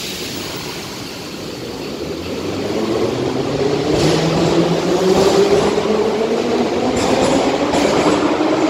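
A metro train accelerating along the platform: the whine of its traction motors rises slowly in pitch over running noise that grows steadily louder.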